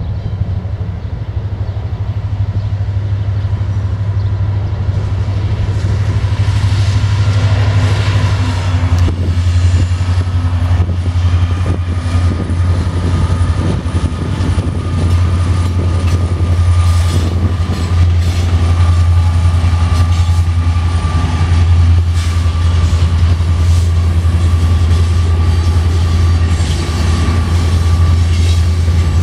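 Norfolk Southern freight train's diesel locomotives passing with a deep steady engine rumble. From about nine seconds in, wheels roll by clicking over rail joints, with a steady high whine.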